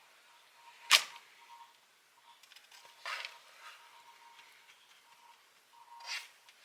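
A kitchen utensil knocks sharply against the mixing bowl about a second in, then scrapes the sticky ramen and peanut butter mixture out into the baking dish in short rasping strokes, around three and six seconds in.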